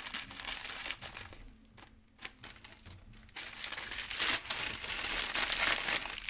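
Foil-lined snack packet crinkling as it is cut open with scissors and pulled apart by hand. The crinkling drops away for a couple of seconds in the middle, then comes back louder and denser from about three and a half seconds in as the packet is opened up.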